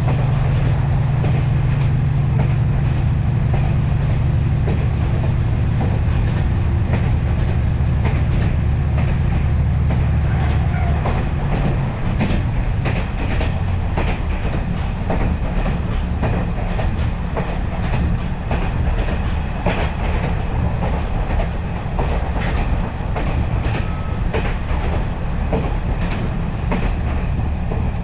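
KiHa 40-series diesel railcar running at speed, heard from inside the car. The diesel engine drones low under power and eases off about twelve seconds in, while the wheels clack over the rail joints throughout.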